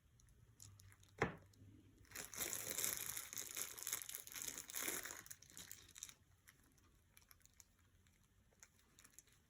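A single sharp click, then about four seconds of crinkling rustle as something is handled, fading to a few faint ticks.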